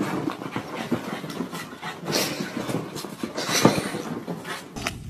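Small puppy scrabbling and burrowing on a fabric sofa cushion: rustling with scattered clicks and a few short rushes of noise.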